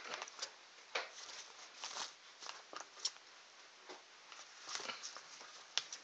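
A parrot splashing in a small tub of bath water: quick, light patters and flicks of water in short, irregular spells.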